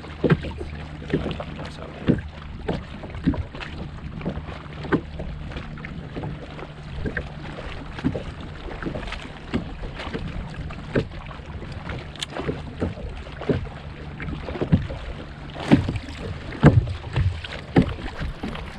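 Small waves slapping against the hull of a fishing kayak in irregular knocks, with wind on the microphone. The knocks come louder and closer together near the end.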